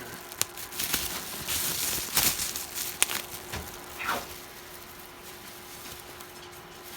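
Bubble wrap being popped by hand: several sharp pops over the first four seconds, with plastic crinkling between them, then it goes quieter.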